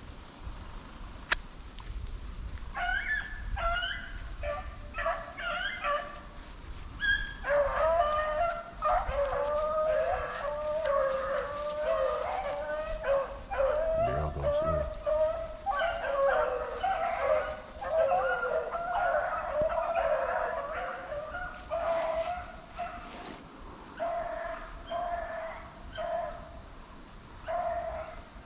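A pack of rabbit hounds baying on a rabbit's trail: several dogs' voices overlap into a full chorus from about eight seconds in, then thin out to single short bays near the end. One sharp crack about a second in.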